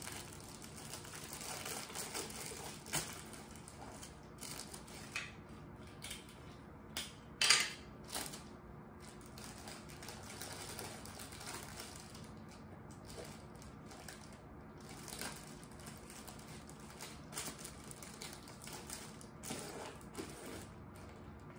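Clear cellophane gift wrap crinkling and rustling as it is handled and pressed around a basket, with scattered small crackles and taps and a sharper one about seven and a half seconds in.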